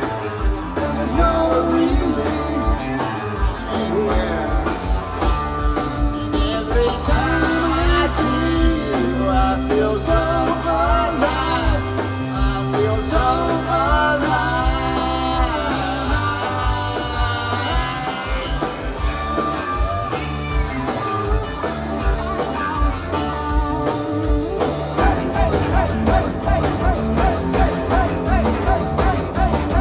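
Live rock band playing an instrumental passage: electric guitar lead with bending notes over bass and a steady drum beat. The drumming gets busier near the end.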